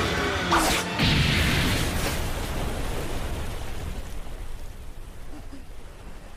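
Dramatic anime sound effects: a sudden sharp impact about half a second in and another at about a second, then a loud rushing rumble that slowly dies away.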